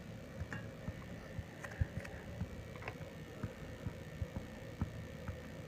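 Low, steady background hum with a faint high whine, and small irregular clicks and ticks scattered throughout, about two or three a second.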